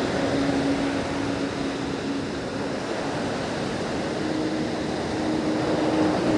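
Surf breaking and washing up a sandy beach, with strong wind buffeting the microphone in a steady rushing noise. A faint steady low hum runs underneath.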